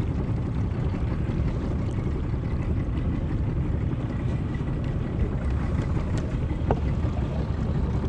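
Steady low rumble of wind buffeting the microphone on an open aluminium boat.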